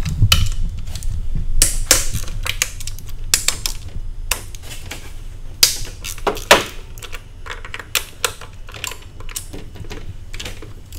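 Socket ratchet clicking in irregular runs as tight bolts on a plastic intake manifold are worked loose, with a couple of sharper metal knocks about six seconds in.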